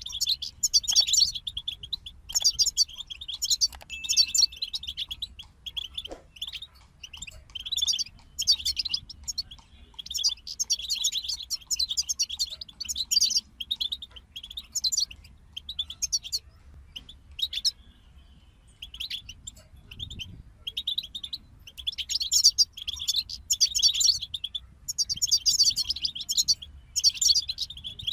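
European goldfinches singing: fast, tinkling twittering phrases in quick succession with brief gaps, thinning out for a few seconds past the middle before picking up again.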